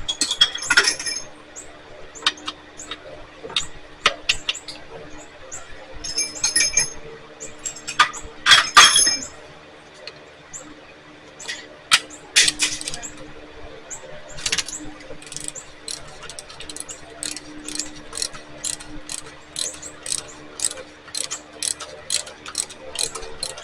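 Hand tools clicking and clinking on the Stihl FS76 trimmer's engine as its spark plug is removed. In the second half the clicks come in a regular run of about three a second.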